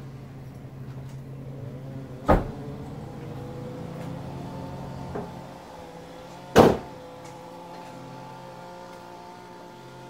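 Saturn Sky Redline's turbocharged 2.0 L four-cylinder idling through a muffler-less cat-back exhaust with a catless downpipe, a steady low drone. Two sharp, loud knocks cut across it, about two and a half and six and a half seconds in.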